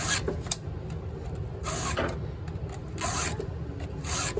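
A hand file rasping across the cutters of a Stihl MS 261 chainsaw chain during sharpening, in about four even strokes, with a light click between strokes.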